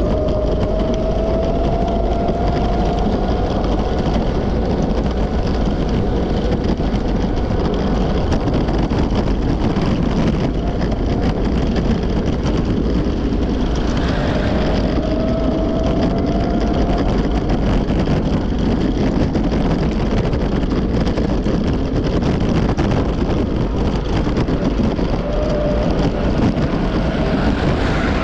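Continuous rushing wind and rolling noise on the microphone of a camera travelling along a paved path. A faint whine slowly rises in pitch a few times.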